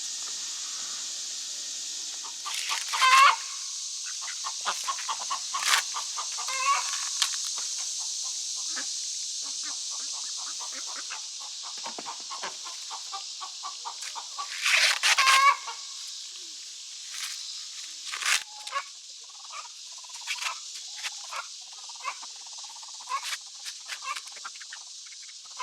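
Chickens clucking and calling, with two louder, longer calls about 3 seconds in and about 15 seconds in, over a steady high hiss.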